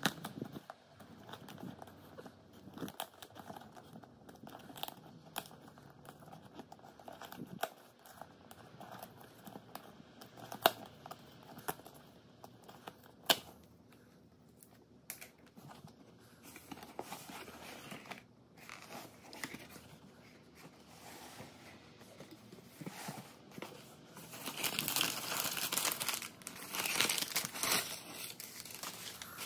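Cardboard box's zip tear strip being pulled and torn away, with a few sharp clicks. Near the end comes louder, denser crinkling as brown kraft packing paper inside the box is pushed aside.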